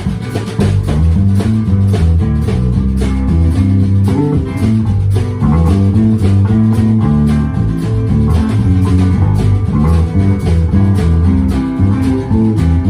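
A blues-rock trio of electric guitar, bass guitar and drums playing an instrumental passage: a walking bass line under guitar notes, with a steady drumbeat.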